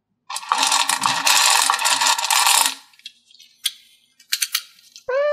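Small plastic pearl beads rattling against each other and the metal muffin tin as a hand scoops through them for about two and a half seconds, followed by a few scattered clicks.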